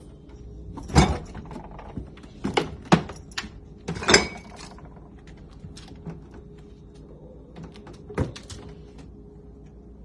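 Refrigerator door and the things inside it knocking and thudding about half a dozen times as a cat gets into the fridge, with a faint steady hum underneath.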